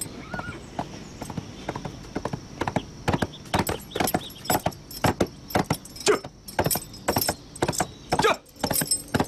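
Hoofbeats of a ridden horse approaching, growing louder and more frequent from about three seconds in.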